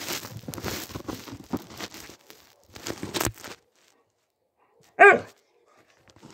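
A dog barks once, a single sharp bark about five seconds in. Before it, loud rustling and scraping close to the microphone.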